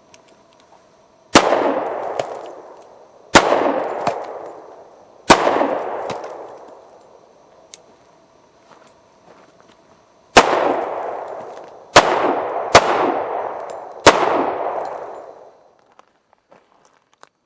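Ruger SR1911 Commander-size .45 ACP pistol fired seven times: three shots about two seconds apart, a pause of about five seconds, then four quicker shots. Each shot is followed by a long rolling echo.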